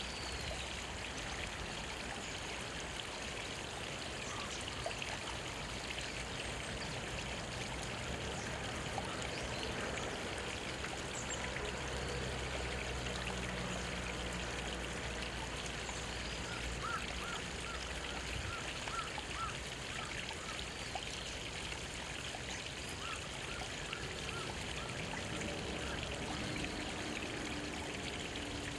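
Small mountain stream trickling between rocks in a steady babble. Near the middle and again later, a bird gives a short run of repeated chirps.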